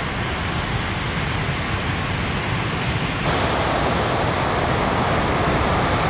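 Steady rushing roar of breaking ocean surf. About three seconds in it switches abruptly to a slightly louder, brighter take of the same surf noise.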